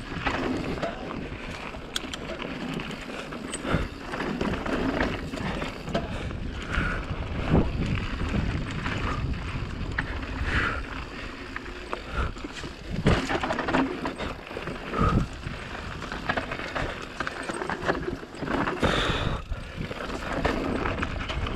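Giant Reign Advance enduro mountain bike descending a race stage at speed, heard from a chin-mounted camera: a steady rush of wind and tyre noise on dirt, with frequent knocks and rattles as the bike hits bumps and rocks.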